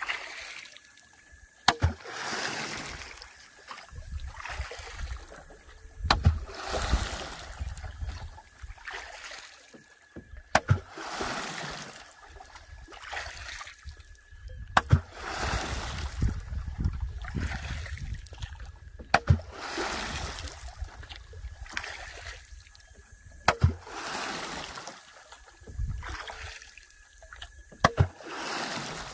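Regular strokes in lake water from a small fishing boat, about one every four seconds. Each stroke starts with a sharp wooden knock and is followed by a splash and a rush of water.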